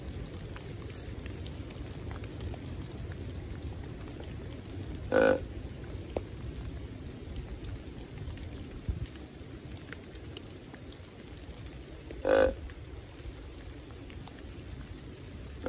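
Deer grunt tube call blown in two short, croaking grunts about seven seconds apart, with a third just starting at the very end: a hunter calling to draw in a buck.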